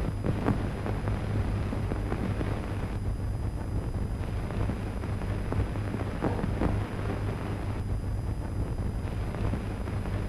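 Surface noise of an old 1930s film soundtrack: a steady low hum under hiss, with scattered crackles and pops.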